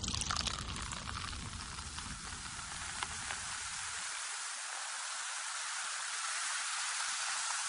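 Steady outdoor hiss in falling snow, with a low wind rumble on the microphone for about the first four seconds that then drops away.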